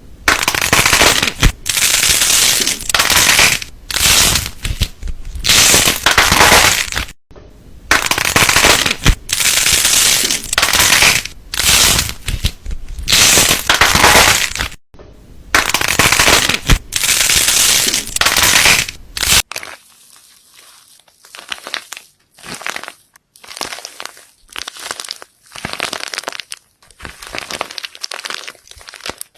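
Slime being squeezed and pressed by hand, in repeated noisy squishes with fine clicks, each about a second long. About two-thirds of the way through the squishes suddenly become much quieter and sparser.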